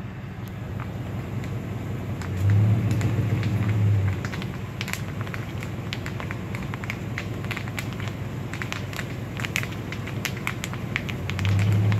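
Car tyres rolling slowly over a dirt road covered in fallen maple seeds, the seeds popping and crackling under the tread, like driving over bubble wrap. A low rumble swells about two and a half seconds in and again near the end.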